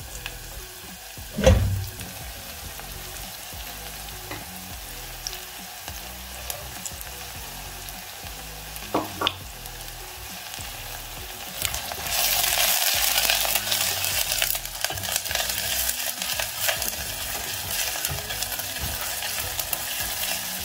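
Sliced onions frying in oil in stainless-steel pans, sizzling steadily while a spoon stirs them, with a single loud knock near the start. The sizzle grows much louder and brighter about twelve seconds in.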